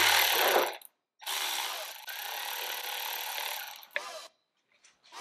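Power ratchet running in two bursts, a short one of about a second and then a steady run of about three seconds, loosening a valve-cover bolt on a Jeep XJ engine.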